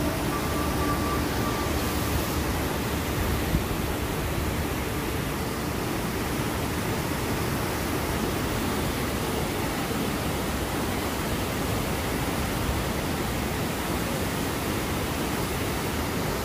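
Kegon Falls, a tall waterfall plunging into a rocky gorge, making a steady rush of falling water.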